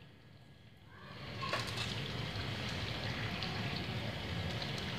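Oil sizzling steadily around bread pakoras deep-frying in a karahi, with small pops and crackles; the sizzle starts about a second in after a short silence.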